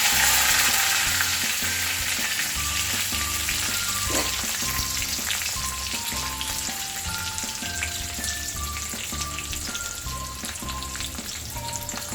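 Curry leaves and green chillies sizzling and crackling in hot oil with mustard seeds in a kadhai, loudest at first and slowly dying down. Background music plays along.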